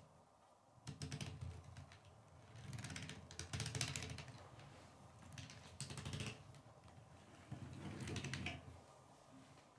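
K'nex plastic pod spinner turned by hand, its plastic gears and connectors clicking and rattling in rapid runs. The clicking comes in four spells of about a second each.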